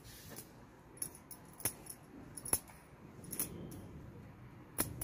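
Tailoring scissors cutting blouse fabric: a few sharp metallic clicks at uneven intervals, about a second apart, with soft rustling of cloth between them.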